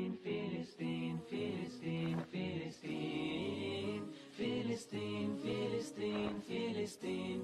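Nasheed: several voices singing a rhythmic melody together, vocal music without instruments.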